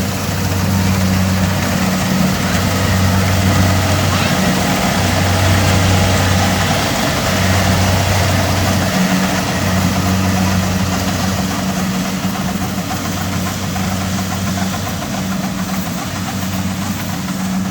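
Kubota DC70 Plus combine harvester running steadily, its diesel engine giving a low hum that swells and fades every second or two over the clatter and rush of the working machinery.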